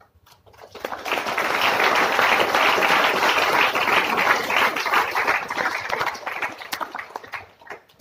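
Audience applauding: the clapping swells up within the first second, holds, then dies away near the end.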